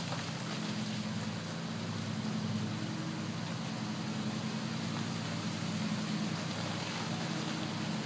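Honey bee swarm buzzing in a steady, unbroken drone, with an even hiss over it.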